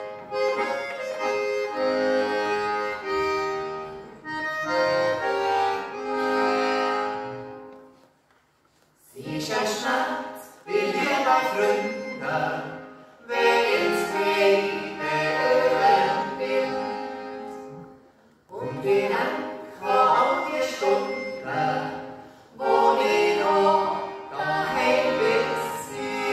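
Small Swiss button accordion (Schwyzerörgeli) playing a folk melody in held chords, breaking off briefly about eight seconds in. It then resumes more lively, with a voice singing along.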